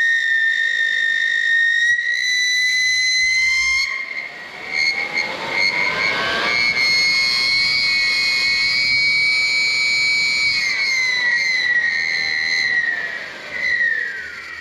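Small electric blower motor, its speed set by a variac, running with a loud high whine. The pitch climbs a few seconds in as the voltage is turned up, holds steady, then glides down and fades near the end as it is turned back down.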